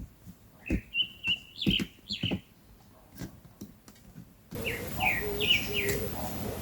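Short, high, flat chirping calls mixed with a few soft knocks. About two thirds of the way through, a hissy background suddenly sets in, carrying a regular run of quick repeated chirps.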